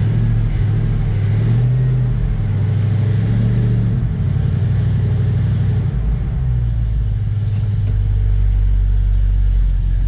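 The engine of a 1954 Chevy 3100 pickup is revved up twice and then settles back to a steady run. It pulls cleanly with no misfire, now that two swapped wires in the engine harness have been put on their correct computer pins.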